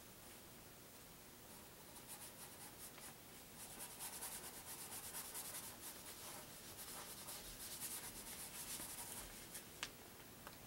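Faint scratchy scrubbing of a paintbrush being worked over a surface in quick repeated strokes, beginning about a second and a half in and stopping shortly before the end, followed by a single light tap.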